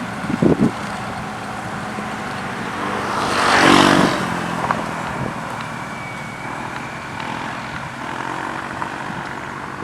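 Road rollers' diesel engines running steadily at an asphalt paving site, with a louder rushing swell about three to four seconds in as a machine comes close.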